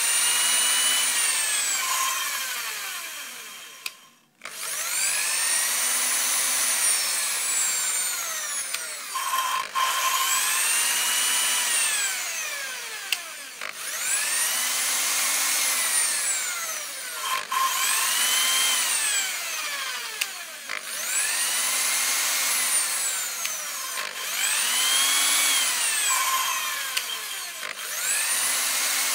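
Electric drill spinning an engine valve against its seat in short runs, each one speeding up and slowing down, with a brief stop every three to four seconds as the drill's direction is reversed. This is a valve seat being lapped in with abrasive paste.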